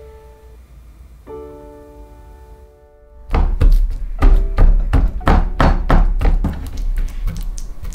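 Soft plucked-note music, then from about three seconds in a fork stabbing repeatedly through a raw pork leg block into a wooden cutting board: quick thunks, about four a second, louder than the music.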